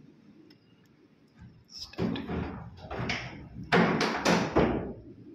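Laminate-faced sliding wardrobe door rolling along its track as it is pushed open and shut. Several loud surges of sliding noise start about two seconds in, the loudest near the end.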